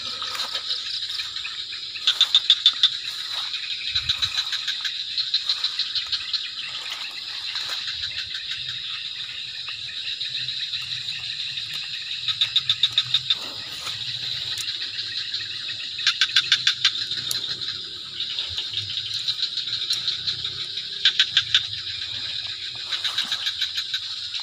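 Night chorus of insects and frogs in a wet field: a steady high trill, with louder runs of rapid pulsed calls coming every three to five seconds.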